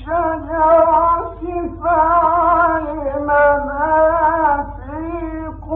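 A man's voice reciting the Quran in the Egyptian tajweed style, drawing out long ornamented, wavering notes in two or three phrases with short pauses between. The recording is old and thin-sounding, with a steady low hum beneath.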